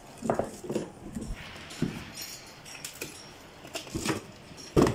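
Cardboard box knocking and scraping on a tiled floor as cats scramble in it and it is handled. There are several short thumps and scuffs, and the loudest thump comes near the end.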